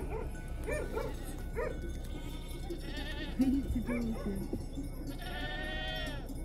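A herd of goats bleating: several short calls in the first two seconds, some lower calls around the middle, and one long quavering bleat about five seconds in.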